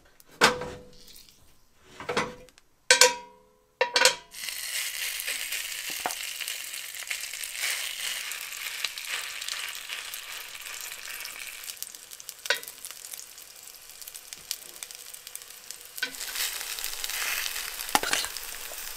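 A few metal clanks, two ringing briefly, as the cast iron skillet and egg rings are handled, then hot olive oil and moose fat in the skillet sizzling steadily as spoonfuls of salmon patty mixture go in. Occasional sharper clicks of the spoon against the pan and rings.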